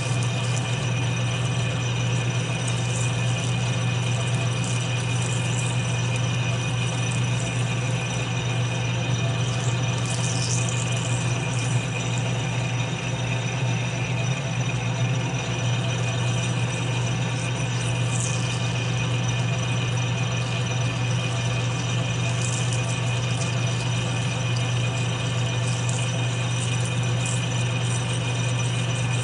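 Metal lathe running slowly in back gear, a steady geared hum and rattle, while a parting tool cuts off a small pin held in the chuck, with a few brief high scraping sounds from the cut.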